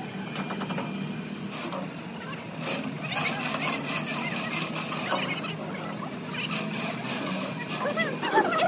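Men's voices calling out over a steady low hum, with scattered clanks and clatter of metal being handled.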